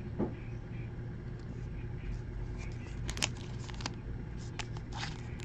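A steady low hum with a few soft clicks and rustles of trading cards and plastic card sleeves being handled, mostly around three to four seconds in and once more near the end.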